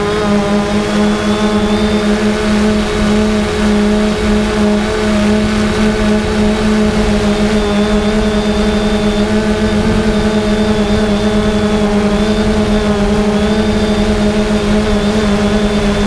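3DR Solo quadcopter's motors and propellers heard close up from on board: a loud, steady hum with a thin high whine above it, its pitch wavering slightly as the drone flies.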